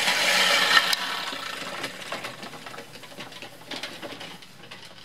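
Fiskars StaySharp Max push reel mower cutting grass: the spinning reel blades whirr with a rapid clicking. It is loudest about a second in as it passes close, then fades as it moves away.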